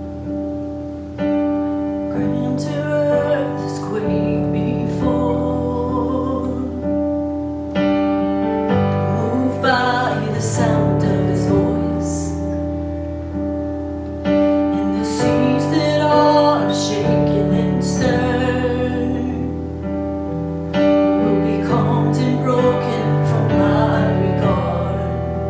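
Worship song opening: piano chords played under a singing voice.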